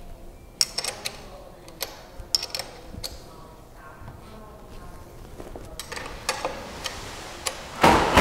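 A 15 mm wrench working the rear axle nut of a Shimano Alfine 11 hub: scattered sharp metal clicks and clinks, several in the first few seconds and a few more later, then a brief louder rush of noise near the end.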